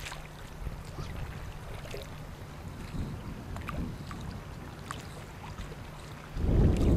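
Wind rumbling on the microphone over open, choppy water, with a few faint ticks. A much louder burst of wind noise starts near the end.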